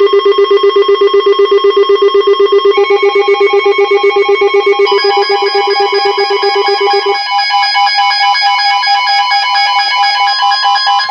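Electronic alert tone pulsing about six times a second in several stacked pitches, with higher tones joining about three and five seconds in and the lowest dropping out about seven seconds in: the alarm that precedes a severe thunderstorm warning.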